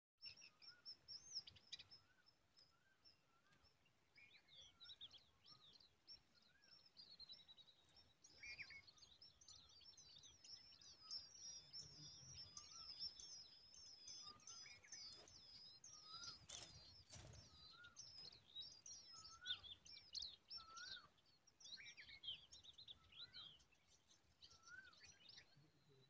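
Tailorbird nestlings begging in the nest: faint, thin, high chirping that goes on almost without pause, with a lower rising call repeated every second or two. A brief rustle or knock comes about two-thirds of the way through.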